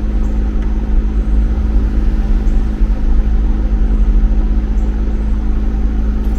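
2013 Chevy Equinox engine idling steadily, which the owner judges to sound good, though hoses are still unplugged.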